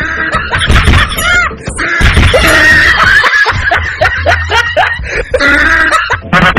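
A shriek, then a long run of rapid, repeated laughter.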